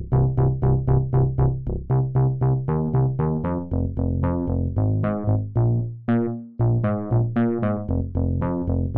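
A Kurzweil K2700 bass patch playing a bass line of short, plucked notes, about four a second. Each note dies away quickly, and the line moves between a few low pitches.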